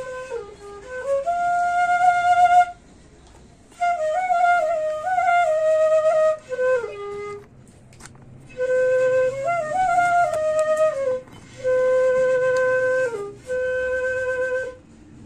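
Bansuri (bamboo flute) playing a melody in phrases of a few seconds each, with short breaks between them; several phrases end on a falling run.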